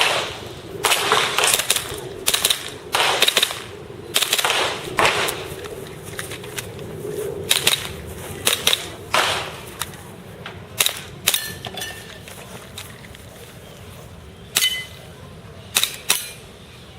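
Airsoft pistol shots fired one after another, often as quick pairs, with short pauses between strings; they come thick at first and thin out after about ten seconds. A couple of the later shots are followed by a brief high ringing tone.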